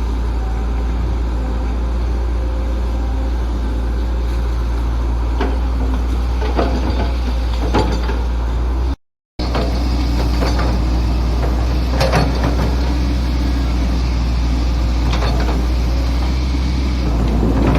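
Excavator's diesel engine running steadily under load, with scattered metallic clanks and knocks from the bucket and arm, heavier near the end. The sound cuts out completely for a moment about halfway.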